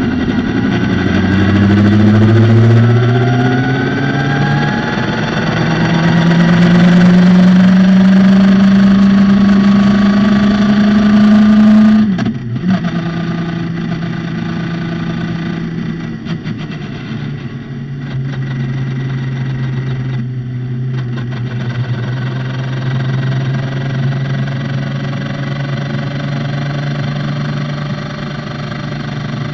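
Radical SR3 sports-racer's motorcycle-based four-cylinder engine at full throttle on track. It pulls through several quick upshifts, then climbs steadily to high revs. About twelve seconds in it cuts back sharply as the driver lifts off, and it runs at lower, steadier revs through the rest.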